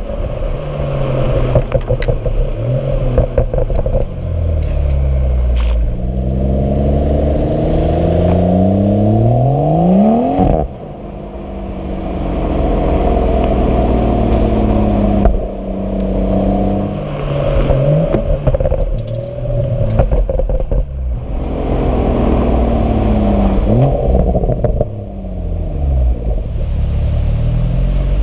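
Turbocharged 3.0-litre straight-six of a BMW F20 M-model hatchback under acceleration, its pitch climbing and then dropping at each automatic upshift, with a few sharp crackles. It backs off and the pitch falls about ten seconds in and again near the end before pulling up once more.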